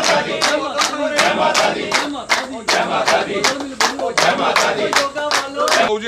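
A group of men clapping together in a steady rhythm, about three claps a second, with several men's voices cheering over it.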